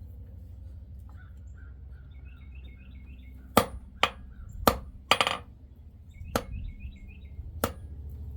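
Hammer blows on an anvil forging a silver ring: six sharp ringing strikes, unevenly spaced, starting about three and a half seconds in. A bird chirps in two quick runs, one before the strikes and one between them, over a steady low hum.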